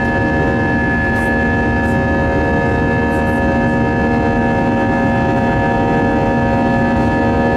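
Airbus A320 jet engines and airflow heard from inside the cabin during the climb: a steady rushing drone with several fixed whining tones over it.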